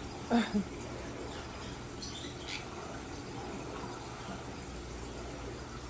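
Quiet room tone with a steady low hum and faint scattered rustles. A short two-part low sound comes about a third of a second in.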